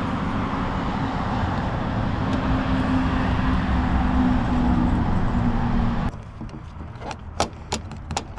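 Steady vehicle-like rumble with a held low hum that cuts off abruptly about six seconds in, followed by scattered sharp plastic clicks and knocks as the door handle is wiggled loose.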